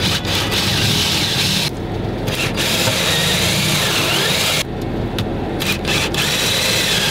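Cordless drill boring holes through a wooden wall panel, the motor whining as the bit cuts into the wood. The drilling eases off briefly twice, about two seconds and about five seconds in.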